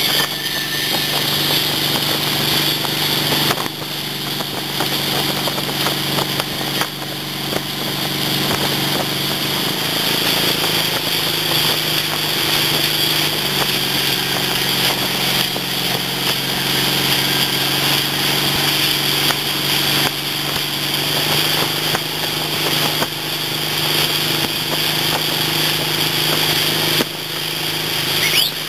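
MasterCraft tow boat's inboard engine running steadily under way, with the rush of wake water and wind. The engine note dips slightly about ten seconds in and picks up again a few seconds later.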